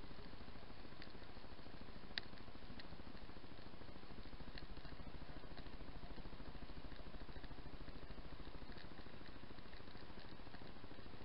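Underwater ambience heard through a camera housing on a reef: a steady low hum with a fast, even pulse, like a boat motor running somewhere in the water, and faint scattered clicks, one sharper about two seconds in.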